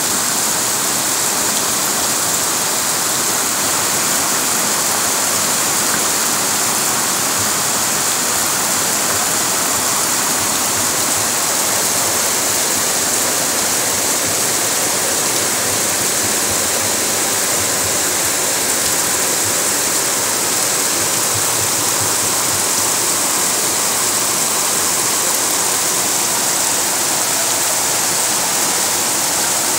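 Heavy rain and floodwater rushing down a street, a loud, steady hiss.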